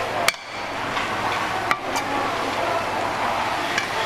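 Metal ladle clinking against a pot of fried rice, a couple of sharp clinks about a second and a half apart, over steady kitchen background noise.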